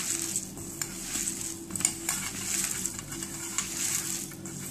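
Hand mixing and kneading a moist mash of crushed green chickpeas and cornflour in a stainless-steel bowl: irregular squishing and scraping, with a few light clicks against the bowl.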